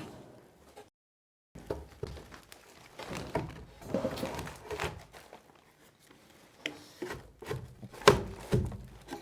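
Wooden boards knocking and thudding as they are handled and fitted, a string of irregular thunks with the loudest knock near the end.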